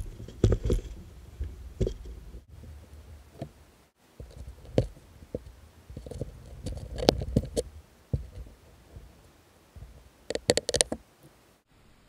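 Hands working a towel and a Phillips screwdriver on the plastic cover of a Suzuki Burgman 400's handlebar brake-fluid reservoir: irregular clicks and knocks over a low rumble, with a quick string of sharp clicks near the end.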